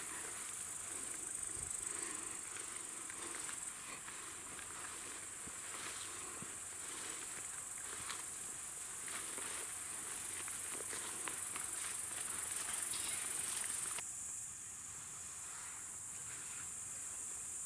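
Crickets chirring steadily in the meadow grass, a continuous high-pitched drone, dropping a little in level about fourteen seconds in; faint rustles and soft knocks underneath.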